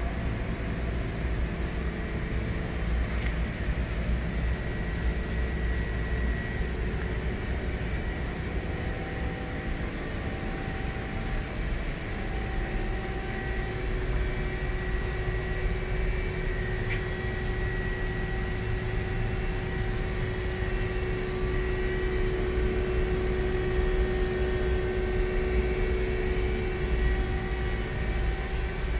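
Steady hum of running machinery, with a low rumble and a few faint steady tones that come and go.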